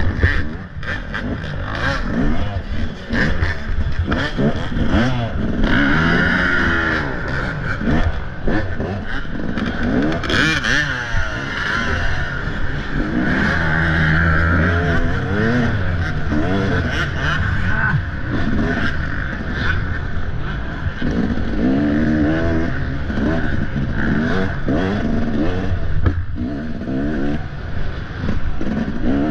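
Off-road dirt bike engine revving up and down again and again, its pitch rising and falling every second or two.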